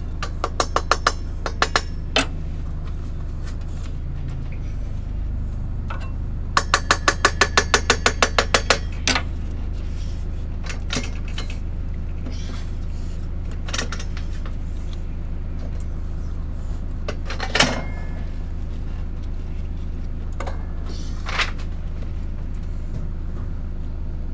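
Mallet blows on the cylinder head of a Chrysler Hemi 245 straight-six, knocking the head loose from the block once its bolts are out. A handful of sharp strikes at the start, then a quick run of about a dozen about seven seconds in, followed by a few single knocks over a steady low hum.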